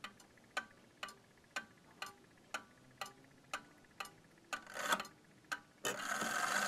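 Seth Thomas clock's 89E movement ticking steadily, about two ticks a second. Near the end the movement starts a continuous whirring run that keeps going.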